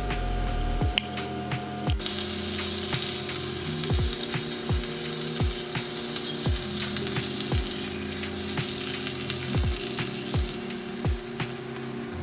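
Flour-dredged bluegill fillets sizzling as they fry in a pan of hot oil, the sizzle starting about two seconds in. Background music with a steady beat runs underneath.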